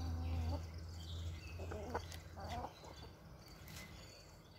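Flock of backyard laying hens clucking while pecking at scattered feed: a few short clucks in the first three seconds, over a low rumble that fades out about three seconds in.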